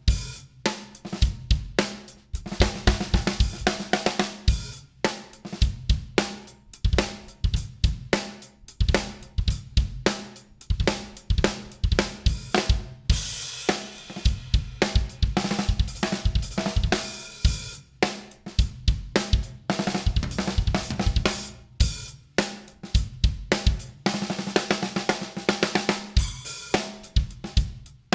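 Drum kit played in grooves and fills on a 6x14 ten-ply bubinga snare drum with Evans heads and 30-strand Puresound snare wires, alongside kick drum, hi-hat and cymbals. Cymbal wash grows heavier about halfway through and again near the end.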